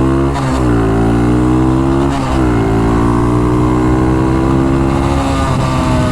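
Small single-cylinder four-stroke engine of a Honda Dax-style minibike accelerating under load, its pitch climbing and then dropping sharply twice as it is shifted up, about half a second in and just over two seconds in. It then pulls at a fairly steady speed.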